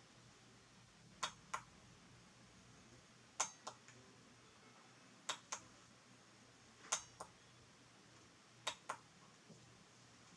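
Relay on a breadboard latch circuit clicking as it is switched, now working properly after a rewire. The clicks come in pairs about a quarter second apart, five pairs about every two seconds.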